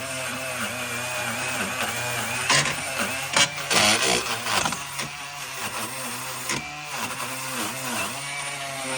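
An electric power tool motor runs, its pitch dipping and recovering again and again as it is loaded against metal. About two and a half seconds in come several bursts of harsh noise that last until a little past four and a half seconds.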